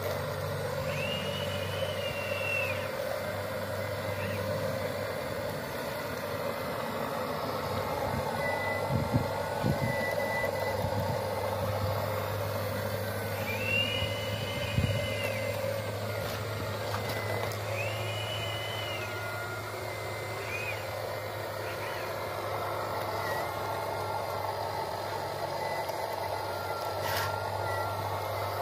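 Radio-controlled model excavators working: a steady motor hum, with a higher whine that rises, holds for a second or two and falls again several times as the arms move. A few short thuds come in the middle as the bucket digs into the dirt.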